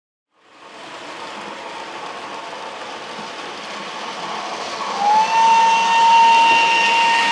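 Model steam locomotive's DCC sound decoder playing steam running sounds, fading in as a steady hiss after a cut. About five seconds in, its whistle slides up and holds one steady note.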